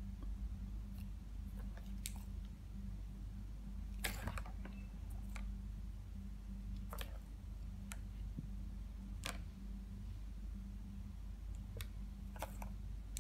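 Scattered sharp plastic clicks and knocks from a three-tier plastic ball-track cat toy as a kitten paws at it and the balls knock in the track. The loudest cluster of clicks comes about four seconds in, over a steady low hum.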